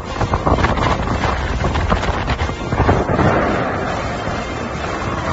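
Loud, gusting wind buffeting the microphone, the air blast from a glacier ice avalanche sweeping spray across the lakeshore, with a swell of rushing noise about three seconds in.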